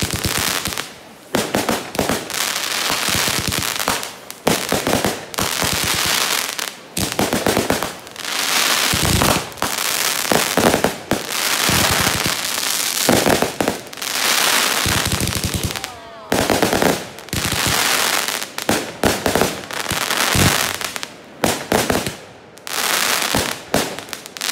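Aerial fireworks bursting overhead in rapid volleys: sharp bangs followed by long stretches of dense crackling from glittering crackle stars, with short lulls between volleys.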